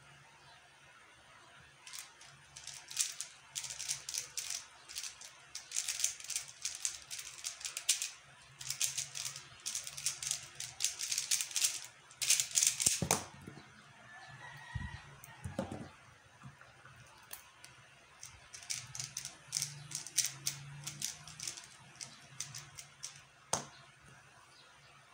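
QiYi X-Man Tornado V1 3x3 speedcube being turned fast by hand: rapid clusters of plastic clicking and clacking, a pause about halfway, then more turning, and a single sharp tap near the end.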